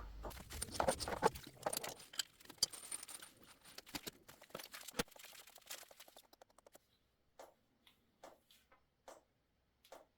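Faint clicks and rattles of small objects being handled, thinning after about six seconds to light, separate ticks roughly every half second.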